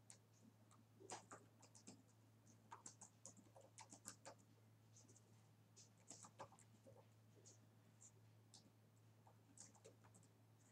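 Near silence: faint, irregular clicks of typing on a computer keyboard, over a steady low hum.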